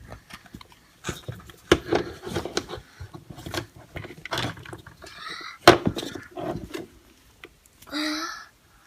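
Hard plastic Play-Doh kit tools and molds clicking, tapping and knocking as they are handled on a table, in an irregular run with the sharpest knock a little past halfway.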